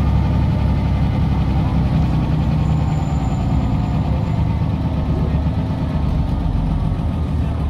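Scania CL94UB city bus's DC9 nine-litre five-cylinder diesel running, a steady low drone heard from inside the passenger cabin and easing off slightly in loudness.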